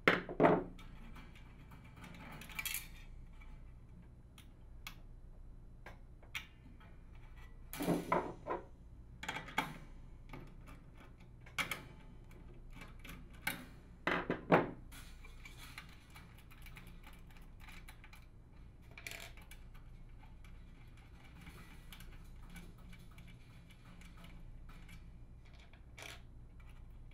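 Scattered metallic clicks and clinks of a nut driver working small nuts off the terminal bolts of a bath fan heater assembly, with the sheet-metal housing and loose nuts being handled. About a dozen separate sharp sounds, the loudest about 8 seconds in and again about 14 seconds in, with quiet stretches between.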